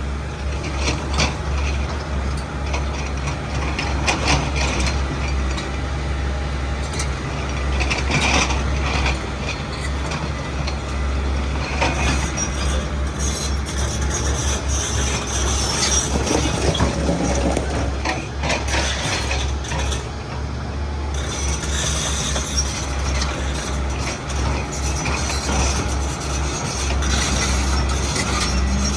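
XCMG 210 hydraulic excavator's diesel engine running steadily under work, with scattered knocks and clanks from the working machine.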